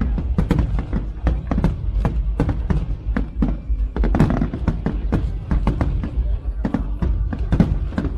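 Fireworks going off in quick, irregular bangs and crackles, several a second, over a steady low rumble, with music playing.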